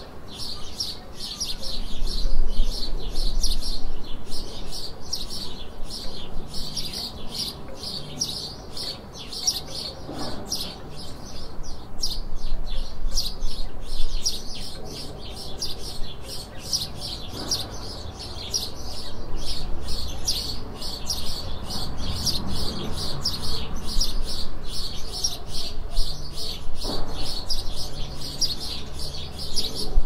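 Birds singing in a steady, dense chorus of quick high chirps, with a faint low rumble underneath.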